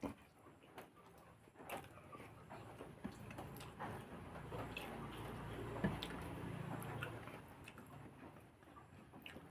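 A person chewing a mouthful of food, with soft wet mouth clicks and smacks, fairly faint. The chewing grows a little louder and fuller for a few seconds in the middle.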